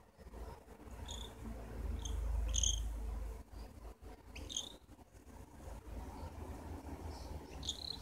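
Cockatiel giving short, high chirps, about five of them spread over several seconds, while having its head scratched. A low rumble sits underneath, loudest a couple of seconds in.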